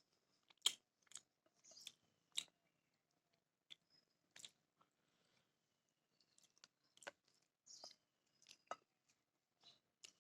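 Quiet chewing of beef biryani close to the microphone, with about a dozen irregular wet mouth clicks and lip smacks over near silence.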